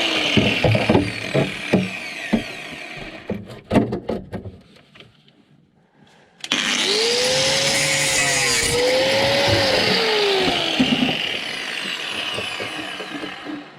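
Angle grinder working rusted car-body sheet metal. It spins down, then comes a series of sharp knocks and a short lull. About halfway through it starts again abruptly and runs under load, its pitch sagging and recovering, before dying away near the end.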